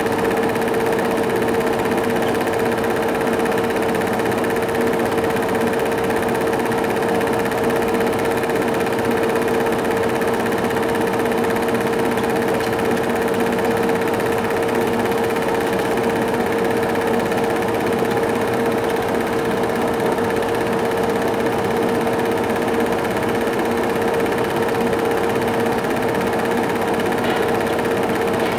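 Movie projector running steadily: an even mechanical whir and clatter with a constant hum, with no soundtrack on the silent home-movie film.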